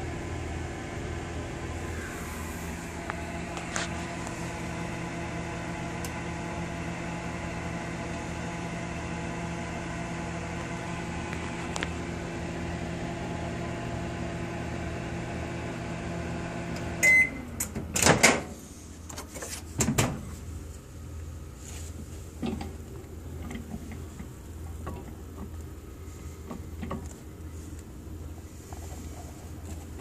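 Microwave oven running with a steady hum, which winds down and stops a little past halfway with a short beep. Loud clicks follow, the door being opened, then a few lighter knocks.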